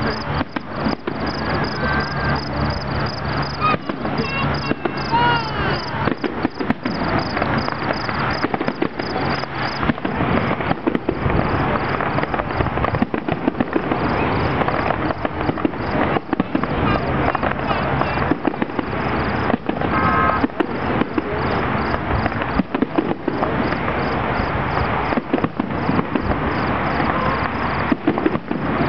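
An aerial fireworks display: shells bursting in a dense run of bangs and crackles, over the voices of a crowd of onlookers.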